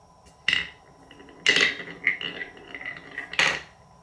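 A marble rolling and dropping through a wooden marble-run block with three round bowls, clattering on the wood. Three sharp knocks, about half a second, a second and a half and three and a half seconds in, with quick rolling clicks between the last two.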